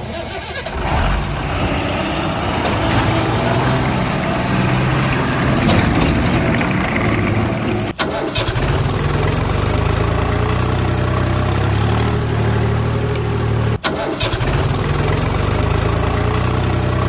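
Vehicle engine sound effect: an engine starting up and then running steadily, breaking off briefly twice, about eight and fourteen seconds in.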